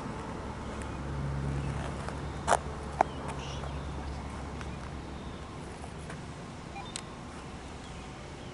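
Outdoor background noise with no siren sounding. A low steady hum swells about a second in and fades by about five seconds. Two sharp clicks come about half a second apart midway, and a fainter one follows later.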